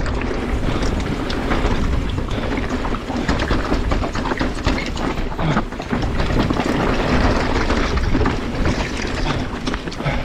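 Mountain bike descending a rough downhill track: a continuous clatter of tyres, chain and suspension over the trail surface, with many rapid knocks and rattles.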